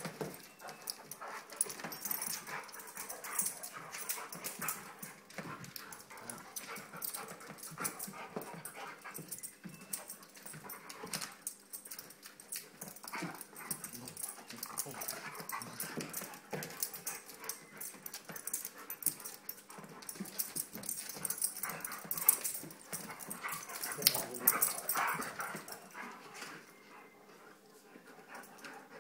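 Two dogs play-wrestling: dog vocal noises mixed with scuffling of paws and claws, in uneven bursts that are loudest about four-fifths of the way through.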